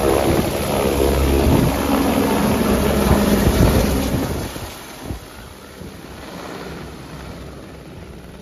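Helicopter engine and rotor noise, a loud steady rumble that falls away to a much quieter level about four and a half seconds in.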